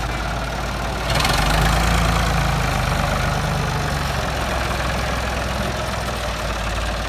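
Ford 4600 tractor's three-cylinder engine running as it pulls a trailer loaded with soil, getting louder about a second in as the tractor takes up the load, then slowly easing off.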